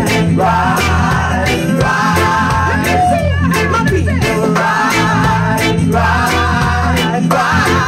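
A vocal group singing together in harmony with vibrato, backed by a live reggae band: a heavy bass line, drum kit and guitar.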